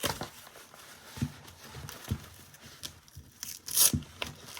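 Hook-and-loop (Velcro) fastener being handled and peeled apart, with a few light taps and a short rip about three and a half seconds in.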